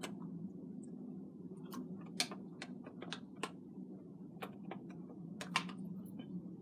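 Scattered light clicks and taps from a plastic spiralizer's blades and frame being handled and fitted together, about ten over a few seconds, over a steady low hum.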